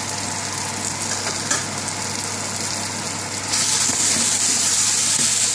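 Sliced onions sizzling in oil in a frying pan as a spatula stirs them, over a steady low hum. The sizzle gets louder about three and a half seconds in.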